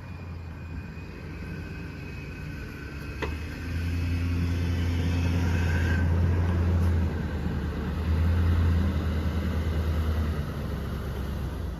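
A motor vehicle's engine and road rumble, a steady low hum that gets louder about four seconds in and eases again near the end.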